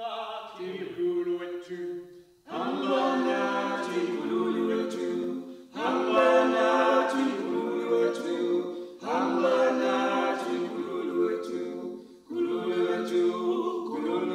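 A choir singing unaccompanied in phrases of about three seconds each, with short breaks between them.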